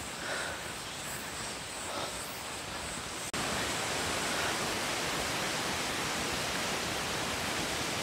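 Small forest waterfall rushing steadily, coming in abruptly about three seconds in. Before it there is a quieter outdoor background with a faint steady high tone.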